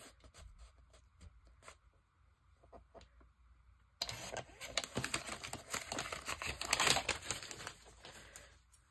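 A sliding paper trimmer's cutter is drawn along its rail, slicing through a glossy magazine page with a scratchy rasp about four seconds in, followed by paper rustling as the cut piece is lifted away. Before the cut there are only a few faint paper clicks.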